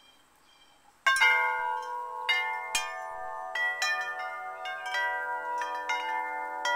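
Wind chime of metal tubes with a round wooden striker, struck suddenly about a second in and then again about every half second, several pitches ringing on and overlapping.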